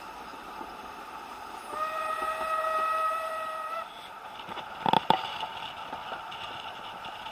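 Steam locomotive whistle, one steady blast of about two seconds over the running noise of the train, followed a little later by two sharp knocks in quick succession.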